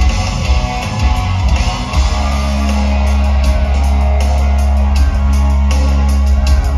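Live rock band playing loud: distorted electric guitars and drums. About two seconds in the band settles onto a long held low chord, with cymbals struck repeatedly through the second half.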